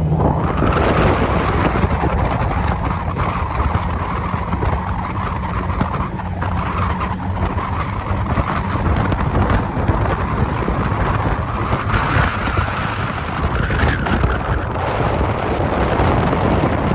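Wind buffeting the microphone: a steady rushing noise with a heavy low rumble that swells and eases.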